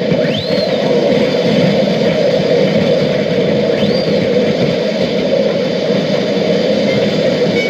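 A loud, steady rushing hiss-like noise with no speech, crossed twice by a short whistle that rises and falls, about three and a half seconds apart.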